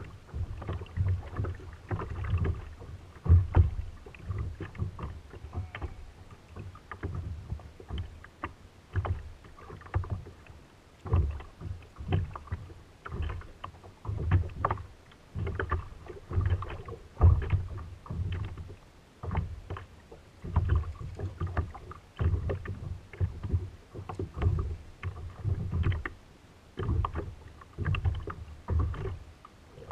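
Small waves slapping against a plastic sit-on-top kayak's hull, as irregular dull knocks about once a second.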